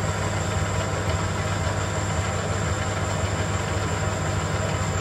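Metal lathe running steadily with a low hum while its tool takes a light skim cut along a spinning metal roller.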